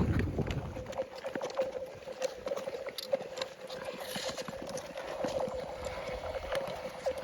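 Black ice ringing and cracking under skates: scattered sharp clicks and pings over a steady ringing tone. A low rumble fades out about a second in.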